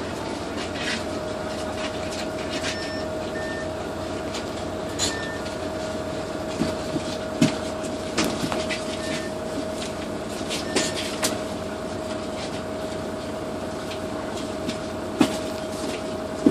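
Cabin noise inside a Neoplan N4016 city bus on the move: steady engine and road noise with a steady whine, broken by scattered interior rattles and clicks and a few short beeps.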